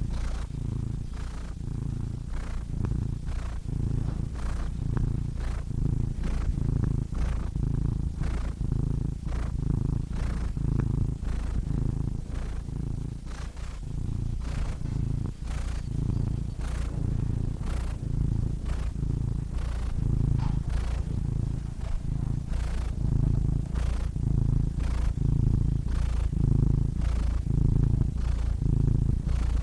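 Domestic cat purring steadily close up, a low rumble that swells and fades in an even rhythm a little under a second per pulse.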